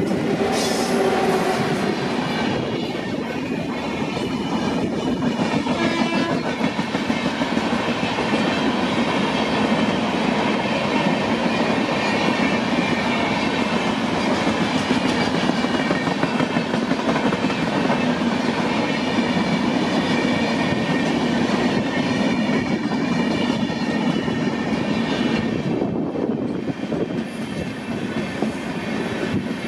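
Passenger express train passing close by at speed behind a WAP-7 electric locomotive, its coaches' wheels clattering steadily over the rail joints.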